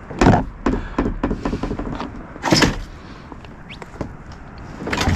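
A series of knocks and thuds, with the loudest about a quarter second in and again about two and a half seconds in, and more near the end.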